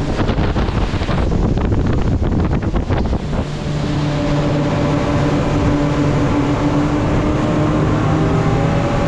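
Fast-running charter boat at speed: wind buffeting the microphone and water rushing and slapping against the hull, with a steady engine drone coming through from about three and a half seconds in.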